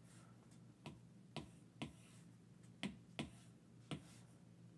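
About six short, sharp clicks at uneven spacing over a faint low hum. These are the clicks of selecting and dragging handwritten items on a drawing screen.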